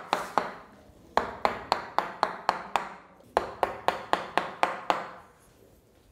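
Handheld percussive chiropractic adjusting instrument firing a rapid series of sharp clicks, about four to five a second, in short runs with brief pauses.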